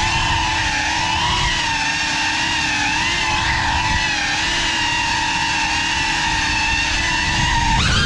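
GEPRC Cinelog35 cinewhoop FPV drone in flight, heard from its own onboard GoPro: the brushless motors and ducted propellers give a loud buzzing whine whose pitch wavers up and down with the throttle. Near the end the pitch climbs sharply in a short burst of throttle.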